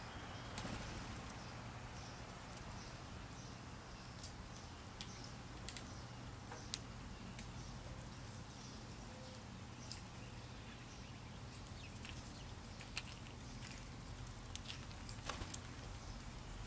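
Scattered faint clicks and crackles of an eastern chipmunk picking through and chewing birdseed, with one sharper click a little after the middle and a small cluster near the end, over a steady low outdoor hum.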